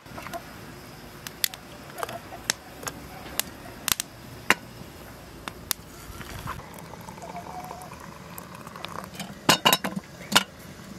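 Hot water poured from a black cast-iron kettle into a second kettle, over a steady background scattered with sharp crackling clicks, with a cluster of louder sharp sounds near the end.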